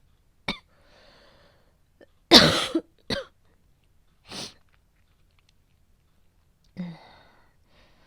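A woman coughing, acted as a cold with a sudden fever coming on. A short cough comes first, then a loud harsh cough about two seconds in and two shorter, softer coughs after it, with breathy exhales between. Near the end there is a faint voiced breath.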